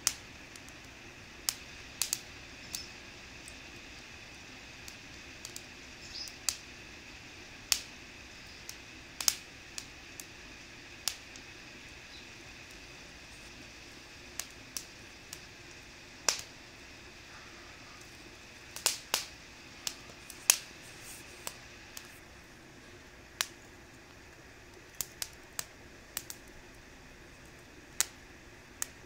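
Wood fire burning in a mesh fire pit, crackling with irregular sharp pops, some close together, over a faint steady background.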